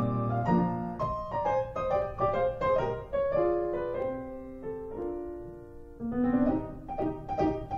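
Background piano music: a melody of struck notes that softens in the middle and picks up again near the end.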